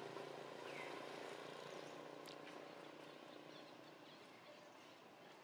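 Faint outdoor background noise that slowly fades, with one brief high chirp about a second in and a few faint clicks past the middle.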